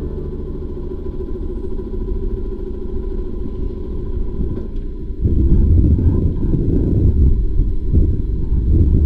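Low, uneven rumble of wind buffeting the bow-mounted camera's microphone on a moving narrowboat. It grows louder and gustier about five seconds in.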